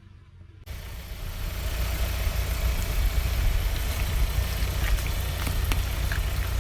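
Car engine running with a steady low rumble that cuts in abruptly about half a second in, after a brief near-silent gap, with a few faint clicks over it.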